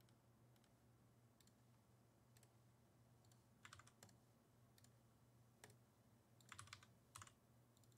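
Faint, scattered clicks of a computer keyboard and mouse over a low steady hum, a few at a time, clustering in the second half.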